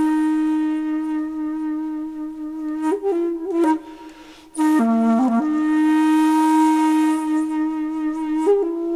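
Background music: a solo flute playing long held notes with short ornamental turns between them, pausing briefly for breath about four seconds in.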